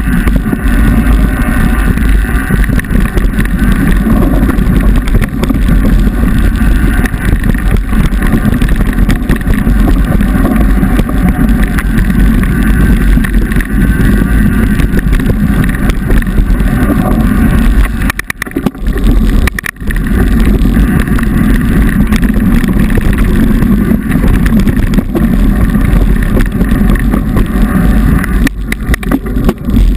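Loud wind buffeting on the microphone, mixed with the rattle and rumble of a mountain bike riding fast down a dirt single-track trail. The sound dips briefly a couple of times about two-thirds of the way through and again near the end.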